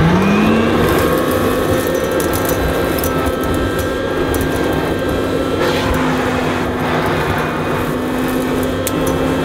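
A 1969 Hoover Dustette Model 2614B handheld vacuum cleaner switched on, its motor whining up to speed within about half a second and then running steadily. It sucks dirt and dog hair off carpet through the hose and wand, with scattered crackles of grit going up the tube.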